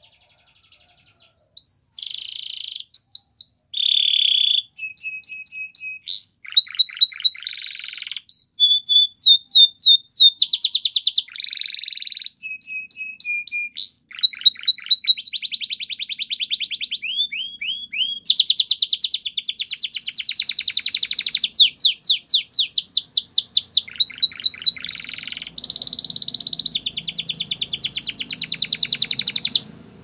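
Domestic canary singing a long, high-pitched song of fast trills and rapidly repeated notes, switching from one phrase to the next every second or two with only brief breaks.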